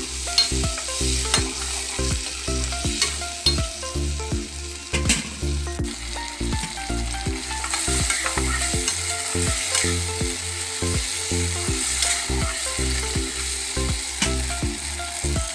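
Diced potatoes and chickpeas sizzling in hot mustard oil in a kadai, stirred and scraped with a spatula against the pan. A low, regularly pulsing hum runs underneath.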